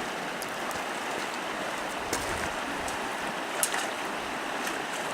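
Swollen creek rushing steadily, running high after heavy rain, with a few brief clicks, the sharpest about three and a half seconds in.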